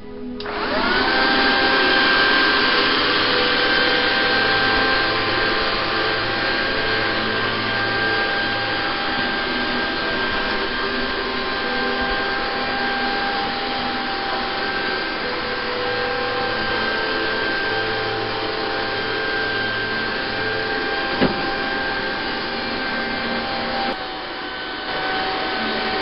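Topan TP-AVC701/702 robot vacuum cleaner running: a steady motor and fan whine that comes up to speed in the first second. There is one short click late on.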